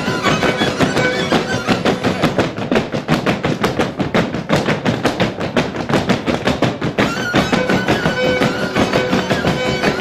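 Live traditional folk music from an acoustic guitar and a large hand-held drum, with men's voices singing along. Fast, even drum beats dominate through the middle.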